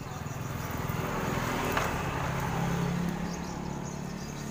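A motor vehicle passing by: its engine hum swells to a peak about two to three seconds in, then fades.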